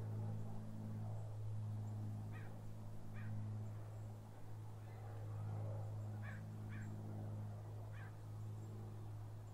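Steady low hum, with a bird calling a few times in short calls about a second apart, twice in a pair.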